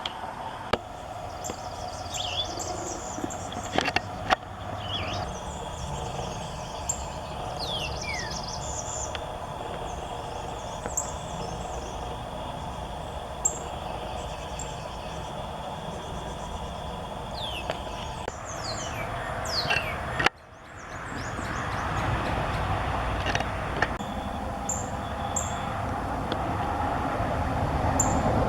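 Northern cardinals chirping: scattered short, high chip notes and a few down-slurred whistles, over steady background noise. About twenty seconds in the sound drops out for a moment, and afterwards the background noise is louder.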